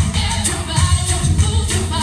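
A song with singing over a steady beat.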